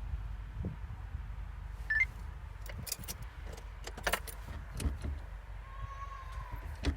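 Mercedes OM662 five-cylinder diesel engine running, a steady low rumble, checked for a knock. A few sharp, irregular clicks sound over it.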